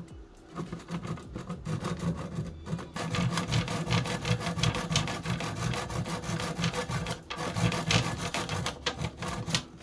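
Hand saw cutting through wood with quick back-and-forth strokes. It starts about half a second in and gets louder and more vigorous from about three seconds in.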